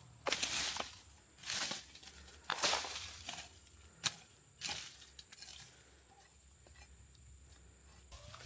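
Thick grass and weeds being cleared by hand: about five short rustling swishes of vegetation roughly a second apart, with one sharp click about four seconds in, then quieter for the last few seconds.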